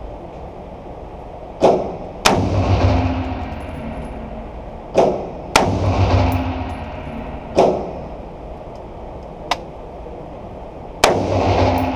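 Rifle shots from a Springfield Armory Saint Victor AR-15 at an indoor range: about six sharp reports at uneven intervals, some coming in pairs half a second apart. Several are followed by a low booming echo in the room.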